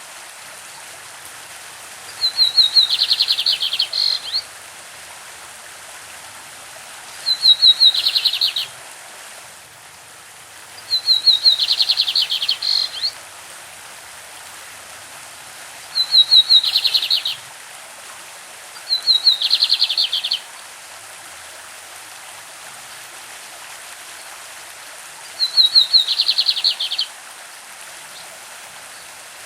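Lined seedeater (bigodinho) singing its classic song: six short phrases a few seconds apart, each a quick run of high notes followed by a dense trill. The steady rush of a stream runs underneath.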